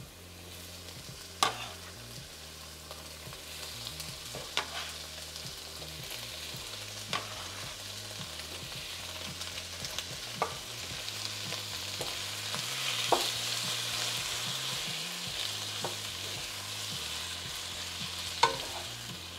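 Chopped tomatoes sizzling in hot olive oil in a nonstick wok, the sizzle swelling about two-thirds of the way through. A sharp knock comes every few seconds as the tomatoes are added and stirred with a wooden spatula.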